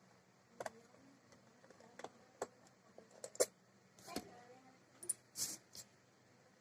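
Irregular light clicks and knocks, about a dozen of them, from small plastic and metal parts of a laptop being handled.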